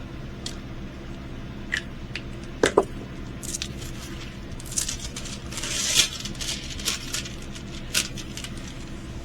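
Packaging of a diamond painting kit being handled and unwrapped: rustling and crinkling of plastic and paper, loudest in the middle, with scattered light clicks and taps.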